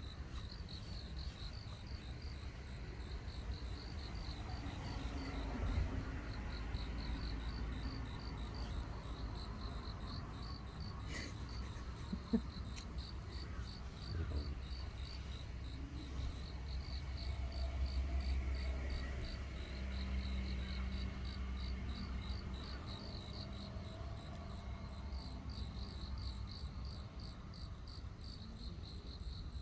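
Crickets chirping in even, high-pitched pulses, over a low rumble.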